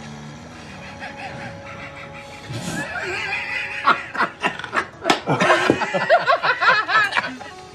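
A man bursting into loud, high-pitched laughter about three seconds in, in quick repeated bursts that go on almost to the end.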